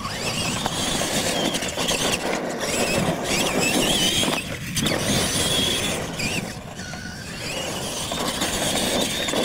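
Two R/C monster trucks racing side by side on dirt, starting sharply at the launch: a high, wavering whine from their drivetrains over a steady rush of noise.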